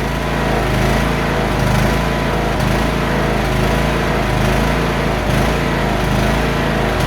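Key-start riding lawnmower's small petrol engine running steadily on choke, on fuel tainted with road diesel.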